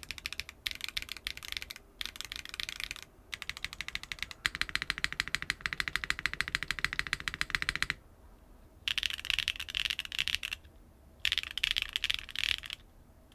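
Typing on a mechanical keyboard with BSUN Ocean tactile switches (polycarbonate top housing, nylon bottom housing) in a foamless Neo 75 CU with a carbon fiber plate, giving a clacky keystroke sound. The keystrokes come in bursts with short pauses between them, with a fast, even run of keystrokes in the middle.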